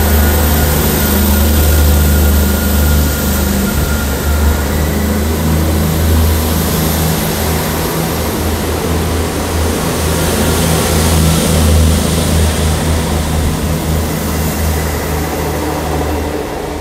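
South Western Railway Class 159 diesel multiple unit pulling out of the station, its underfloor diesel engines running loudly under power as the coaches pass close by. The steady, deep engine hum eases slightly as the last car goes by near the end.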